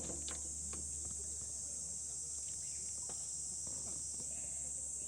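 Steady high-pitched insect chorus, an unbroken drone, with a few faint small clicks.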